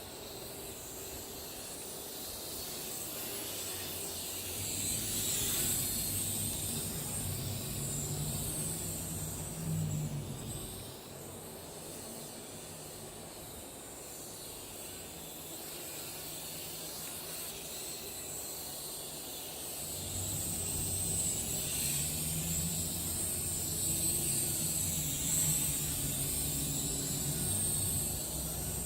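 Syma X11 mini quadcopter's small propellers whining at a high pitch that wavers and swells as it flies, with wind rumbling on the microphone.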